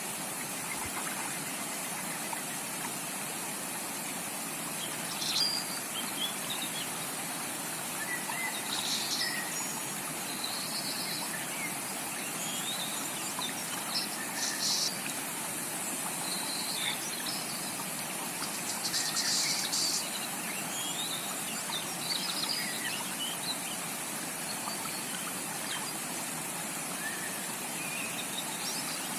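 Steady rush of a tropical rainforest creek, with birds chirping and calling over it off and on. A denser burst of chirping comes about two thirds of the way in.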